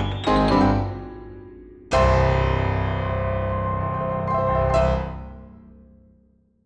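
Background piano music ending: a few notes, then a final chord struck about two seconds in that rings out and fades away.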